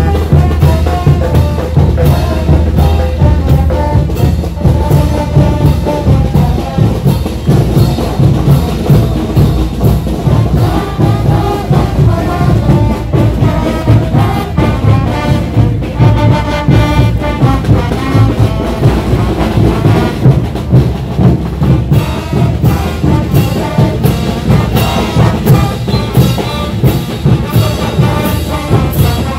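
A Bolivian-style brass band playing caporales music: trumpets, trombones and sousaphones over bass drums and snare drums, with a steady driving beat.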